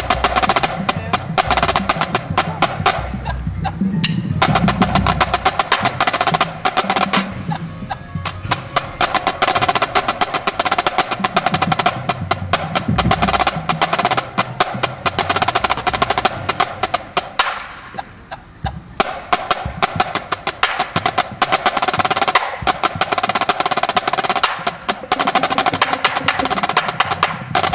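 A line of six marching snare drums playing a warm-up exercise in unison: fast, even stick strokes and rolls, broken by a few short pauses between phrases.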